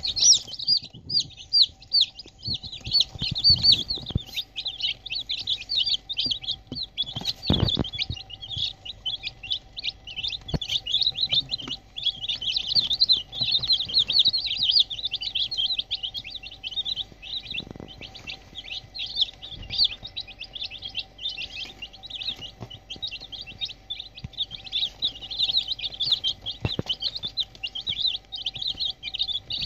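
A brood of about two dozen young domestic chicks peeping all together: many short, high, falling chirps overlapping without a break. There is a soft thump about seven and a half seconds in.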